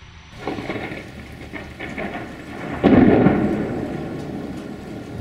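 Thunderstorm: steady rain with a sudden clap of thunder about three seconds in that rumbles away over the following seconds.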